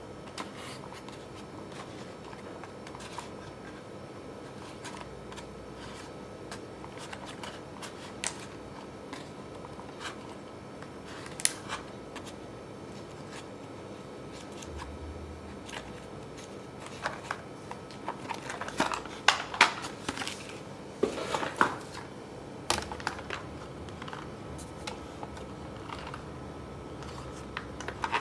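Scattered clicks and rustles of things being handled at close range, with a busier run of crinkling and tapping about two-thirds of the way through, over a faint steady background hum.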